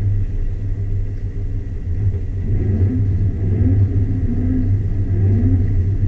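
Jeep Wrangler JK Rubicon's engine running with a steady low rumble, its pitch wavering slightly as the throttle changes.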